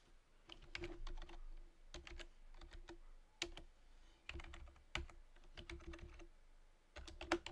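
Typing on a computer keyboard: faint, irregular keystrokes in small clusters with short pauses between them.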